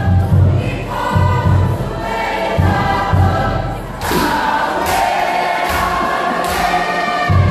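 Cook Islands group singing in chorus over a deep drum beat. About four seconds in the drum drops out and the singing carries on, marked by four sharp hits a little under a second apart.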